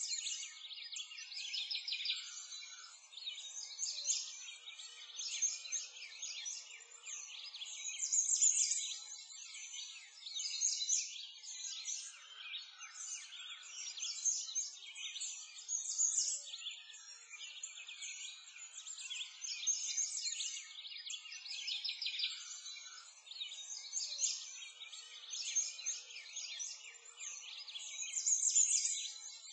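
A dense chorus of small songbirds chirping and twittering, many short high calls overlapping without a pause.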